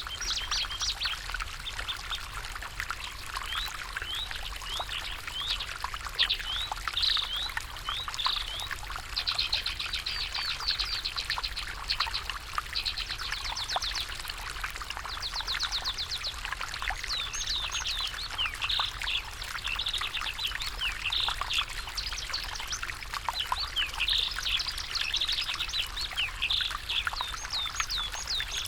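Stream water flowing steadily, with songbirds chirping over it in short calls and several quick, rapid trills.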